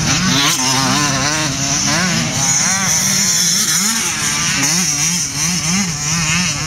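Motocross dirt bike engine revving, its pitch rising and falling again and again as the throttle is opened and closed.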